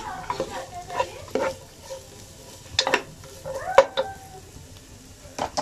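Slotted nylon spatula stirring julienned carrots and capsicum in a granite-coated nonstick wok, with oil sizzling gently over a low flame. The spatula knocks and scrapes against the pan a few times, sharpest about three and four seconds in.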